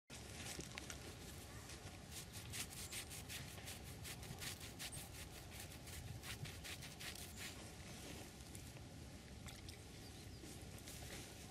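Faint outdoor rustling with many small crackling clicks throughout, over a steady low hum.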